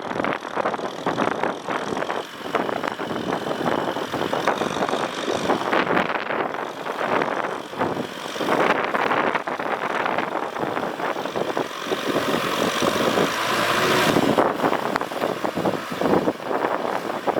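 Tractor engine running under load while plowing a field, a steady, noisy rumble that rises and falls slightly.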